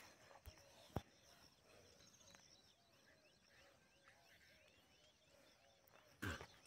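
Near silence: faint rural outdoor ambience with distant birds chirping, broken by a single soft click about a second in and a brief soft knock near the end.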